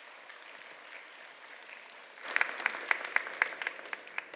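Audience applauding, with a run of louder, sharp individual claps standing out over the general clapping about halfway through, before it dies away at the end.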